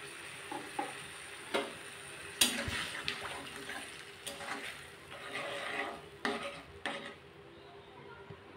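Spatula stirring jute leaves in a little water in a kadai: several scrapes and knocks against the pan over a soft sizzle, which dies down near the end.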